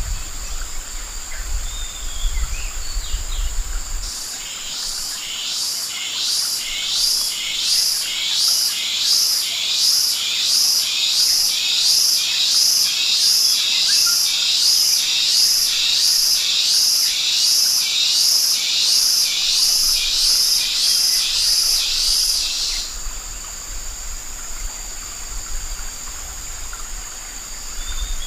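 Forest insects shrilling steadily at a high pitch. Over them a loud, rhythmic pulsing call, about one and a half pulses a second, starts a few seconds in and cuts off suddenly near the two-thirds mark.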